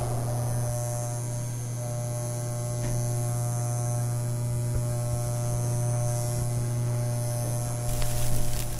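A steady low hum with faint, even higher tones held above it, unchanging until it cuts off near the end.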